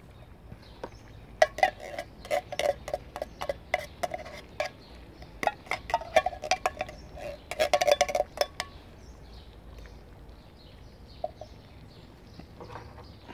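Metal spoon scraping and knocking inside an emptied tomato tin: a quick run of metallic clinks with a ringing note for about seven seconds, then it stops.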